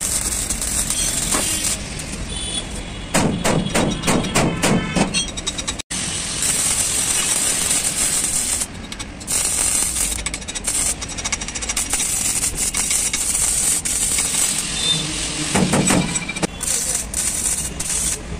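Stick (arc) welding on steel plate: the steady crackling hiss of the arc, broken by two louder stretches with a pitched, fast-pulsing buzz a few seconds in and near the end.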